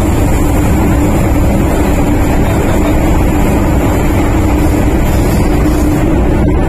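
MTR Tsuen Wan Line M-Train running, heard inside the passenger car: a loud, steady rumble and roar with a steady low hum through it.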